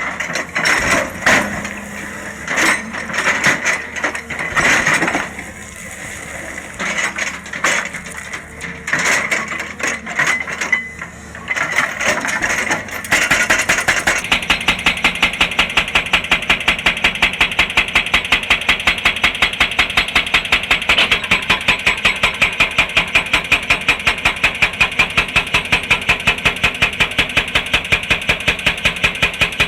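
Excavator working rock: irregular clanking and scraping of rock and steel, then from about halfway a hydraulic rock breaker hammering at a steady rapid rate of about four blows a second.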